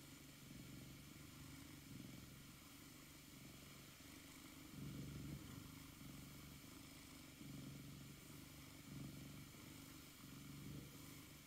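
Norwegian Forest Cat purring softly, a low rumble that swells and fades with each breath.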